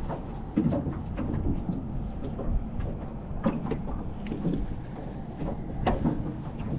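Wind buffeting the microphone in a low, uneven rumble over small waves lapping at an aluminium jon boat, with a few light knocks from gear in the boat.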